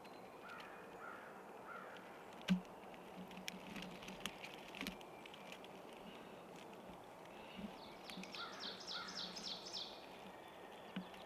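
Faint outdoor ambience with small birds calling: a few soft chirps early on, then a quick run of high chirps, about five a second, near the end. A single sharp knock about two and a half seconds in is the loudest sound, followed by a few lighter clicks.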